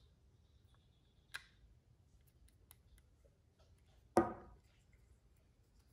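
Faint small clicks and ticks of a Torx screwdriver turning the backspacer screws of a folding knife, the screws being run down tight. About four seconds in there is one brief louder sound.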